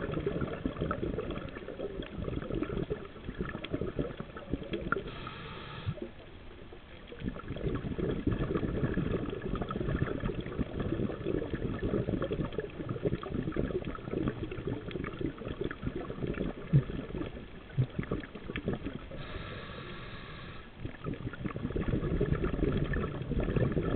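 Scuba regulator breathing underwater: long runs of exhaled bubbles gurgling, broken by short hisses of inhalation about five seconds in and again near twenty seconds.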